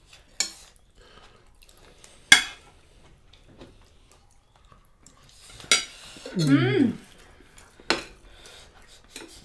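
Metal fork and knife clinking and scraping on ceramic dinner plates, with four sharp clinks, the loudest about two seconds in. A person's voice makes a brief sliding hum about six seconds in.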